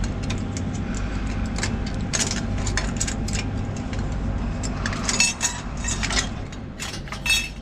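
Light metallic clicks and clinks as a clamp is undone and the metal cooling shroud is worked off a CFM56-5B jet engine's igniter plug, coming thicker in the last few seconds, over a steady low hum.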